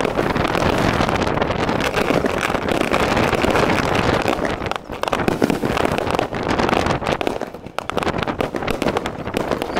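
Fireworks display: aerial shells bursting in quick succession, a dense, continuous run of bangs and crackles, briefly easing off about five seconds in and again near eight seconds.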